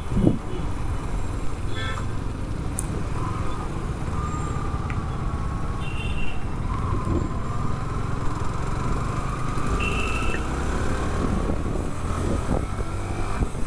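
Road noise from a motorcycle riding through town traffic: a steady engine and wind rumble with a wavering whine, and a few short high beeps from traffic.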